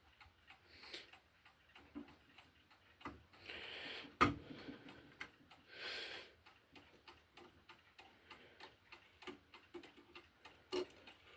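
Urgos dual-chime clock movement ticking steadily, a quick, even tick of its escapement, before the chime starts. A single louder knock comes about four seconds in, and there are a few soft hissing swells.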